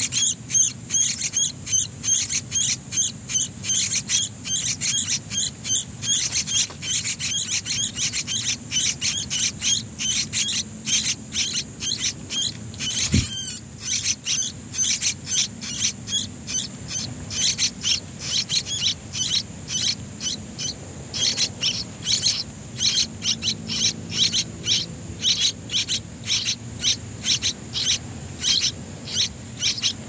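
Yellow-vented bulbul nestlings, about eight days old, begging at the nest with a rapid, steady run of short high-pitched cheeps, about three a second. There is a single sharp click about halfway through.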